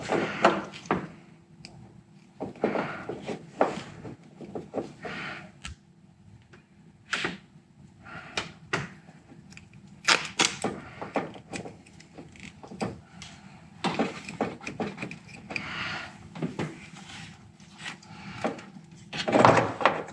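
Hands working a plastic anti-flicker harness and double-sided tape into place: irregular clicks, taps, scrapes and rustles, with a louder flurry near the end.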